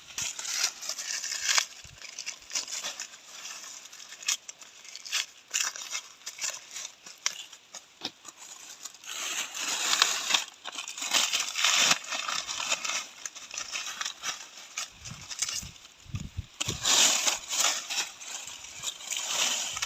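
Dry corn plants rustling and crackling: stalks, leaves and husks being handled, with many sharp snaps in uneven bursts.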